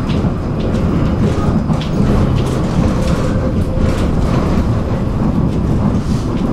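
Tram running along the track: a steady rumble of wheels on rail, with scattered light clicks.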